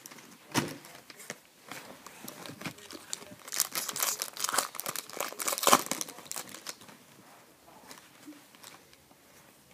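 Hockey card pack wrapper being torn and crinkled, along with cards being handled. The crackling is busiest in the middle and dies down to faint rustling over the last few seconds.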